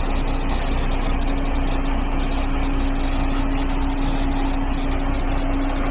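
Sakai SV515D single-drum road roller's diesel engine running steadily as the machine drives along, a low rumble with a steady hum over it.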